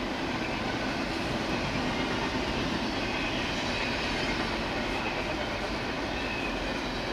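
CSX freight train rolling past steadily, a constant rumble of wheels on rail.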